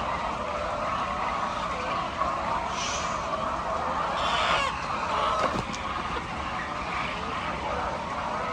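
A large flock of laying hens clucking together in a continuous, dense din, with a few louder, sharper calls rising above it about three and four and a half seconds in.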